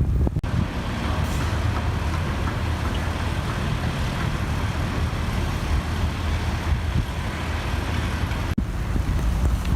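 Steady rumble of road traffic, with two brief breaks, about half a second in and near the end.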